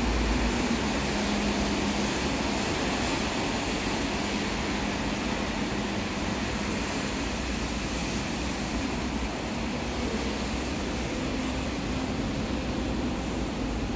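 Steady rumbling, hissing background noise on a half-open subway station platform before any train pulls in, with a faint hum that fades about a second in.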